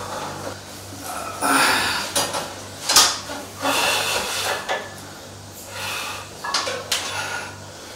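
Irregular metallic clinks and clanks of gym equipment, barbell weight plates rattling as the bar is pressed, with one sharp clack about three seconds in, over a low steady hum.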